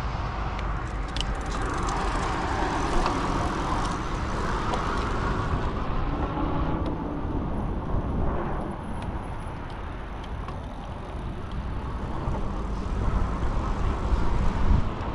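Road traffic heard while riding an e-bike behind a truck: a steady rumble of vehicles and rushing air, with no single event standing out.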